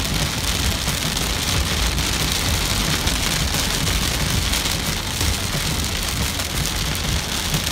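Heavy rain beating steadily on a moving car, heard from inside the cabin, over a low rumble of the car on the wet road.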